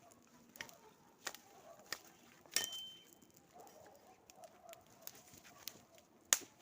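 Scattered sharp snaps and cracks of wood, five or so, the loudest near the end, one followed by a brief ringing tone about two and a half seconds in.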